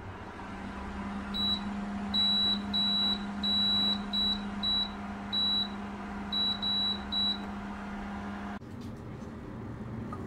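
Midea electric cooker's control panel beeping as its dial is turned to set the cooking timer: about a dozen high beeps, some short and some longer, in quick succession. Underneath runs a steady low hum that cuts off about eight and a half seconds in.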